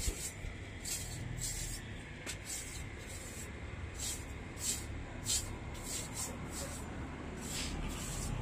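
A knife blade being sharpened: a dozen or so short scraping strokes of steel across a sharpener, irregularly spaced.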